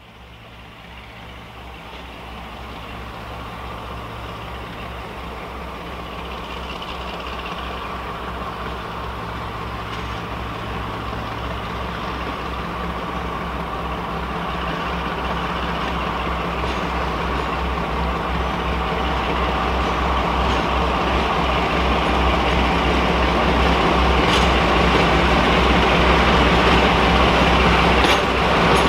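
British Rail Class 42 Warship diesel-hydraulic locomotive D821 approaching with a passenger train, its engines droning with a low, steady pulse. The sound grows steadily louder as it nears.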